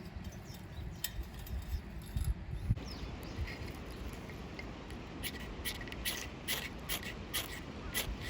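Dry twigs crackling: a quick run of sharp clicks and snaps from about five seconds in, over a low rumble with a few dull knocks at the start.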